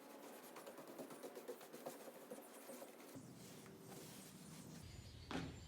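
Faint, irregular scratchy strokes of paint being applied to T1-11 plywood siding laid flat, with a low hum coming in about halfway through.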